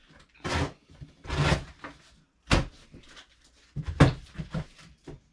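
A cardboard shipping box being handled and opened: a few rustling scrapes and sharper knocks, the loudest knock about four seconds in.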